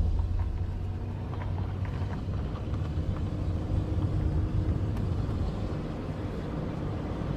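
Vehicle engine running steadily, a low hum with road noise.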